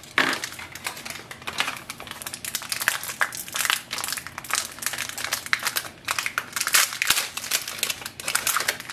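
Plastic packaging crinkling in the hands as HP 67 setup ink cartridges are unwrapped, in dense, irregular crackles.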